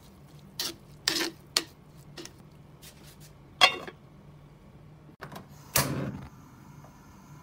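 Kitchen handling sounds at a clay cooking pot: a few light knocks of a spoon against the pot, then an aluminium lid set on with a short ringing clank. Near the end a click and a brief whoosh as the gas burner is lit.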